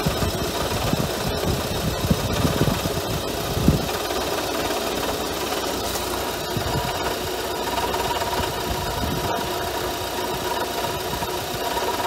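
Renault Kangoo's 1.5 dCi diesel engine idling with very scary sounds from the front of the engine bay: irregular knocking and rattling, heaviest in the first few seconds, over a steady whine. The owner, after listening with a stethoscope, puts the noise down most likely to the alternator itself rather than its overrunning clutch pulley.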